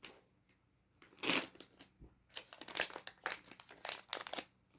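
Plastic packaging of a Beyblade X random booster crinkling and rustling in short, irregular bursts as it is opened by hand.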